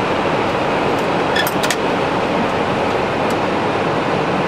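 Steady rushing noise in a Boeing 767 flight deck in flight, with a few light clicks between one and two seconds in.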